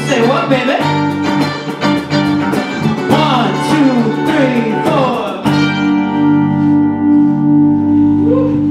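Small folk-rock band playing live on electric guitars, mandolin and cajon: quick picked notes and bending guitar lines over cajon hits. About five and a half seconds in, the band lands on a final chord that rings out steadily, ending the song.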